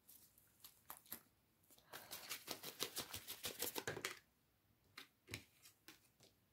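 Tarot cards being handled: a few soft clicks, then about two seconds of rapid flicking clicks of cards moving through the deck, then a few single clicks near the end.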